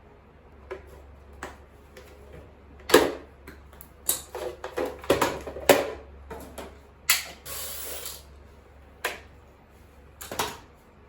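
Irregular clicks and knocks of tools and hard plastic as an old AC charger is taken apart, with a short scraping noise about two thirds of the way in.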